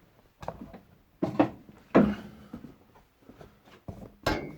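A few scattered knocks and clunks, the loudest about two seconds in and another near the end.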